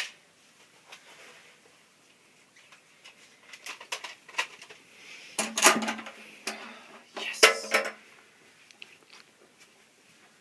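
Scattered sharp clicks and knocks, with two louder bursts of clattering, one about halfway through and one shortly after.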